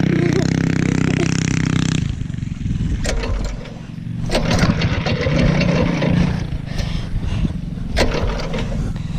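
Minibike's small single-cylinder Predator engine running at steady high revs, then dropping off about two seconds in to a low, uneven running note. A few sharp knocks or clatters come over it near the middle and near the end.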